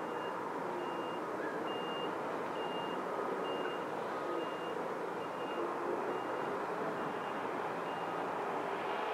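Vehicle reversing alarm beeping steadily, a single high tone a little under once a second, stopping near the end, over a steady background rumble.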